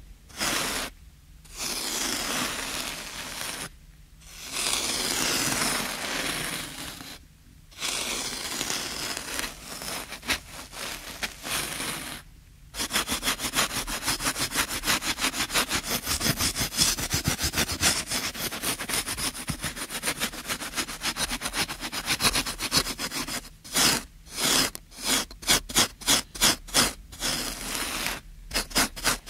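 Scraping and scratching. Long drawn-out scrapes come with short pauses between them, then about halfway through a rapid run of quick scratches begins, which near the end slows into separate strokes, two or three a second.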